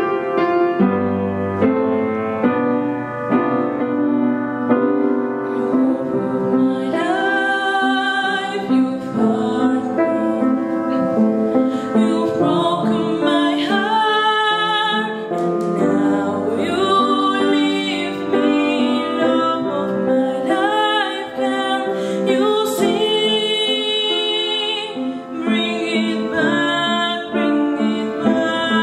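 Piano playing; about seven seconds in a girl's singing voice with vibrato comes in over the piano, which keeps accompanying her.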